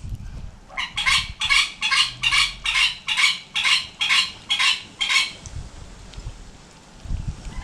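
A bird calling in a rapid, even series of about a dozen harsh notes, roughly two and a half a second, that stops about five seconds in.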